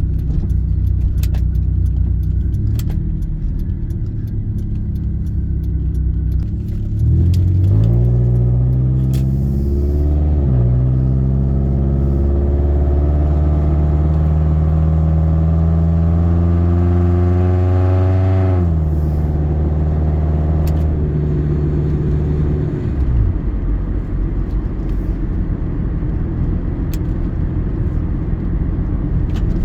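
2000 Honda CR-V's four-cylinder engine under way on the road, its pitch climbing through a gear from about seven seconds in, then again through a longer pull. The pitch drops a little past halfway, holds steady for a few seconds, then eases off into low road rumble, with light ticking rattles throughout.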